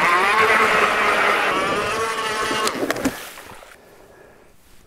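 ION battery-powered electric ice auger drilling through lake ice: the motor whine rises briefly as it spins up, holds steady for about three seconds, then cuts off.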